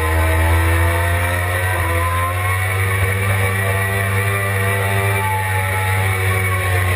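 Suzuki GSX-R600's inline-four engine running hard on track, its pitch sliding up and down as the rider works the throttle through a corner and onto a straight.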